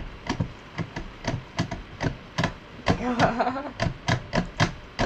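Mini electric sewing machine stitching slowly, its needle mechanism clacking about three times a second in an even rhythm. A short murmur of a voice comes about three seconds in.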